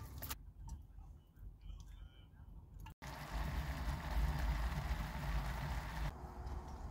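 Chicken curry simmering in a saucepan on a portable gas stove: a steady hissing and bubbling that starts suddenly about three seconds in and cuts off about three seconds later. Before it there are only faint handling sounds as the food is tipped from its plastic tray into the pan.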